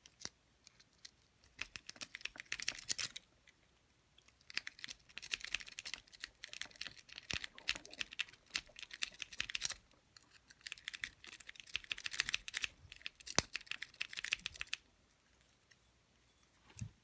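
Worm rake being scrubbed rapidly in and out of a Master padlock's pin-tumbler keyway under tension: dense, fast metallic clicking and scraping of the pins, in three long spells with short pauses between, and one sharper click partway through the third.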